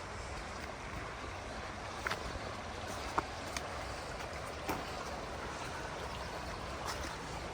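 Deschutes River flowing steadily, with a few brief sharp ticks scattered over it.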